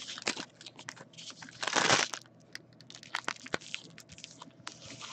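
Trading cards and foil pack wrappers handled on a tabletop: scattered taps and clicks with crinkling, and a longer rustle about two seconds in.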